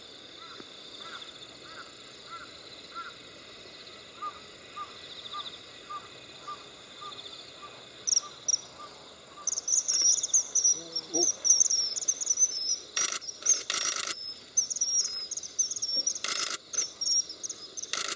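Common kingfishers calling in a territorial dispute: a rapid, dense run of shrill high-pitched calls starting about eight seconds in. A steady insect drone from crickets runs underneath, and a few short bursts of noise break in near the end.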